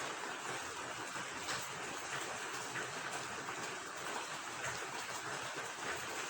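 Steady rain with running water: an even, continuous hiss with scattered sharper drop taps.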